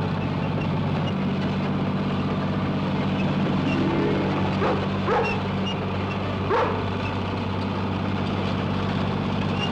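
Crawler bulldozer engine running steadily as the machine moves. A dog barks three or four times in the middle.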